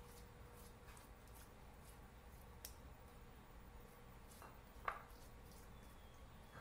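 Near silence, with faint soft dabs and scrapes of a silicone pastry brush spreading spice marinade over a whole croaker fish on a wooden cutting board, and one sharper click about five seconds in.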